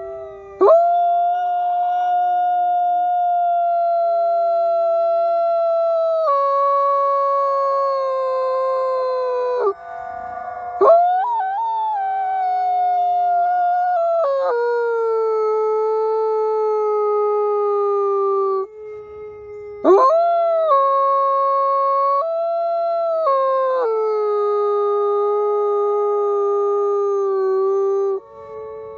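Gray wolf howling close to the microphone: three long howls, each held on a steady note that steps down in pitch, separated by short breaths about 10 and 19 seconds in. A second wolf's fainter howl runs underneath.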